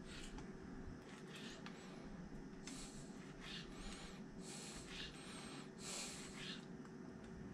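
Faint, soft hissing strokes every second or so: close breathing through the nose while a fillet knife slices raw flounder fillet on a plastic cutting board.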